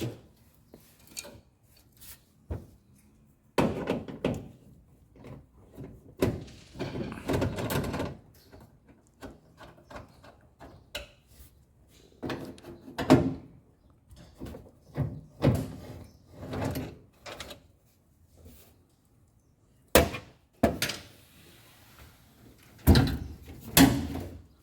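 Screws being taken out and the dryer's sheet-metal panels being handled during disassembly: scattered clicks, knocks and thuds, with a few longer scraping stretches.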